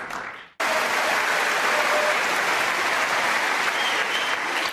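Snooker arena crowd applauding. About half a second in, the applause fades out and then comes straight back at full strength.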